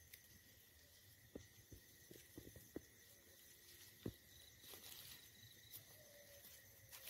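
Near silence: a few faint, scattered clicks and crackles of dry leaf litter, the sharpest about four seconds in, over a thin steady high tone.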